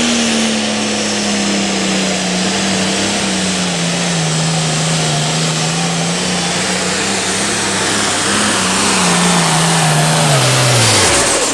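Pro farm class pulling tractor's diesel engine at full throttle hauling the sled down the track, its pitch sagging slowly as the load builds. Its pitch then falls away steeply near the end as the power comes off at the end of the pull.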